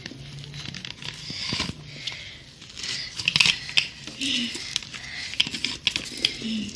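Glitter-laden slime being squeezed and stretched by hand, with irregular sticky crackles and pops.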